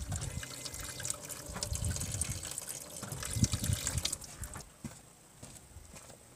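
Petrol pouring from the open outlet nipple of a new in-line fuel filter and splashing below, pushed through by the electric fuel pump with the ignition switched on to prime the filter and avoid an air lock. The flow dies down to a few drips about two-thirds of the way through.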